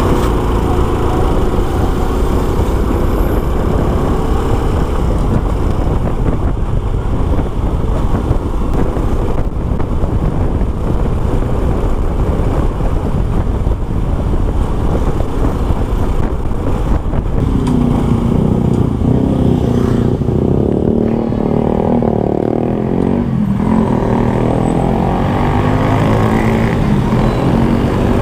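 Honda Supra X 125's single-cylinder four-stroke engine running while riding, under a steady low rumble. Past the middle its note comes through more clearly, dips in pitch and climbs again.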